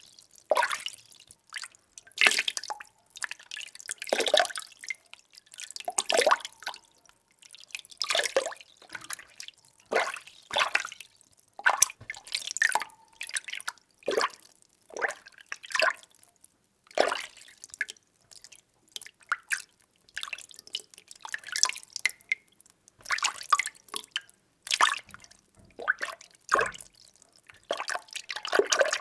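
Water being stirred by hand or with a utensil in a container: irregular sloshes and small splashes, about one every second, with brief quiet between.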